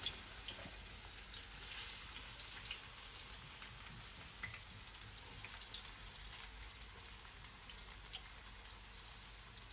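Chopped onion frying in hot oil in a pan: a faint, steady sizzle scattered with small crackles and pops. The oil is hot enough to sizzle as soon as the onion goes in.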